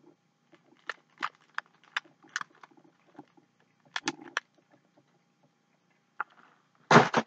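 Chewing and mouth sounds of a person eating a fudge-covered Hostess Twinkie: scattered sharp smacks and clicks in two clusters, then a louder short burst of noise near the end.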